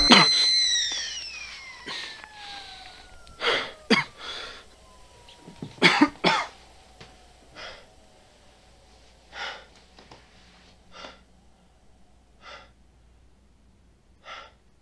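Music cuts off at the start, leaving a single faint tone that slides slowly down in pitch. A man coughs repeatedly, about eight coughs spaced a second or two apart and growing fainter toward the end.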